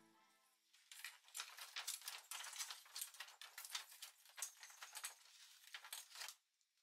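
Faint clicking and rattling of Christmas ornament balls handled and set into a clear plastic storage box: a quick, uneven run of small clicks that starts about a second in and stops near the end.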